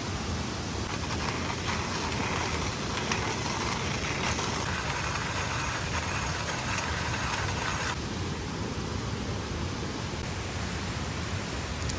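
Steady rushing noise of heavy rain and falling water. A brighter hiss layer cuts off suddenly about eight seconds in.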